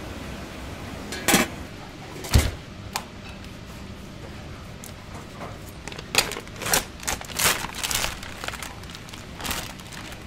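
Scattered sharp clicks and knocks over a steady hiss. There is a thump a little after two seconds, then a quick run of clicking and crinkling between about six and eight seconds.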